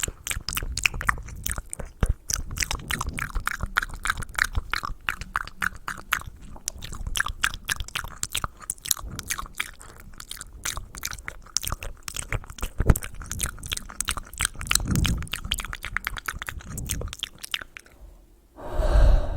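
Close-miked ASMR mouth sounds: a dense run of rapid wet clicks and smacks. A louder muffled burst comes near the end.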